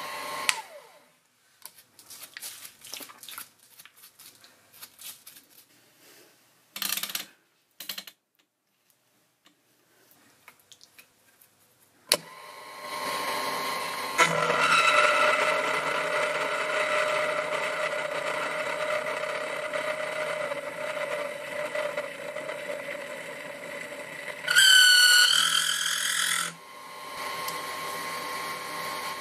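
Light clicks and scrapes, then a small milling machine's motor starts about twelve seconds in and runs steadily as a 6 mm end mill cuts holes in a die blank. A few seconds before the end the cutter gives a louder, wavering high squeal, which the machinist puts down to the cutting edges rubbing when the feed is too slow.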